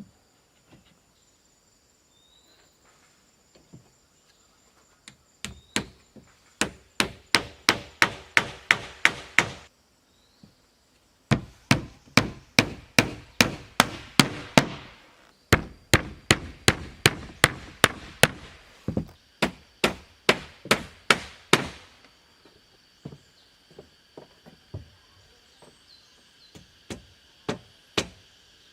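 Hand tool chopping wood: runs of sharp, even strikes at about three a second, with short pauses between runs, then lighter scattered blows near the end.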